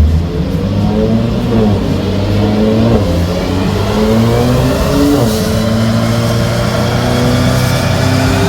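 Mercedes-AMG C43's twin-turbo V6, fitted with upgraded turbochargers, running on a chassis dyno. The revs climb and drop several times as it goes up through the gears, then rise slowly and steadily as it pulls under load.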